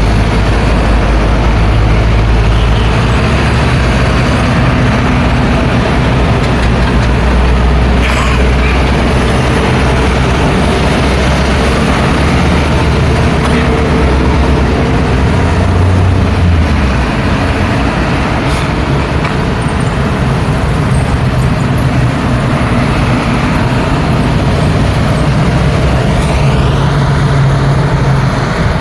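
Busy road traffic: engines and tyres of cars, buses and trucks passing in a continuous loud wash. A deep, steady engine hum from a heavy vehicle sits underneath for the first half, then fades out.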